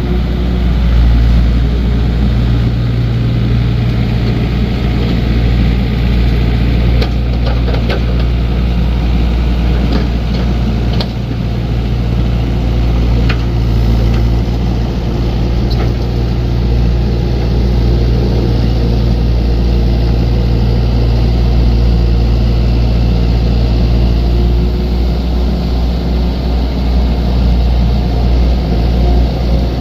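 Heavy-equipment diesel engine running steadily under a deep, even drone, with a few light metallic clicks between about 7 and 16 seconds in.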